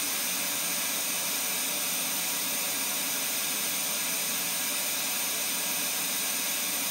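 Steady broadband test noise, a hiss, played through a loudspeaker as the noise signal for comparing two sound level meters, which read about 73 to 76 dB.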